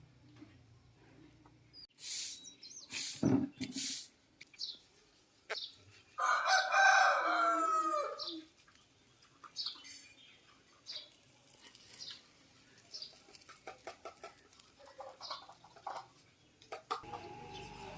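A rooster crows once, about six seconds in: one call of about two seconds that falls in pitch at the end. A few sharp knocks come before it, and faint short high chirps are scattered throughout.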